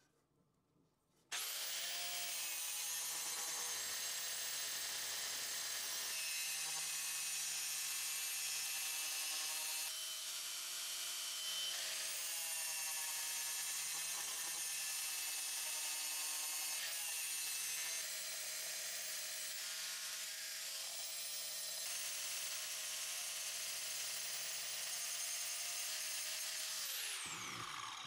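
DeWalt 4-1/2-inch angle grinder starting abruptly about a second in and running with a high steady whine while its wheel grinds the hardened steel of an old file into a knife blade. Near the end it is switched off and the whine falls away as the wheel spins down.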